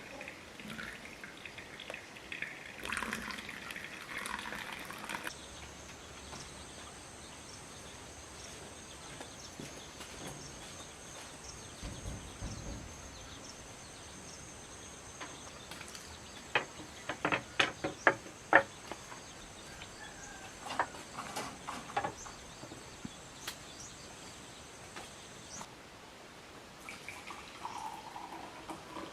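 Kitchenware being handled. A short rush of noise about three seconds in, then a faint steady high whine. Partway through comes a quick run of sharp, ringing clinks and knocks, the loudest part, followed by a few more scattered clinks.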